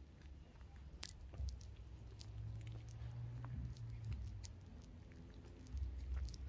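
A person chewing food, with many small scattered clicks of mouth and food noise.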